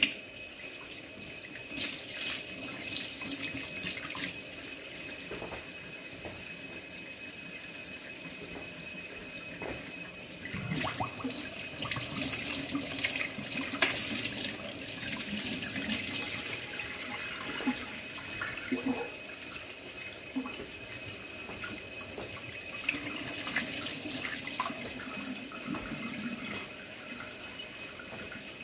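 Kitchen faucet running into a stainless steel sink while raw pork chops are rinsed under the stream. The splashing grows louder and uneven in stretches as the meat and hands move through the water.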